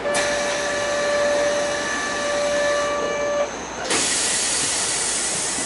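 Kyoto Municipal Subway 20 series train: a steady, high ringing tone of several pitches that stops after about three seconds, then a sudden loud hiss of compressed air released from the train, lasting a couple of seconds.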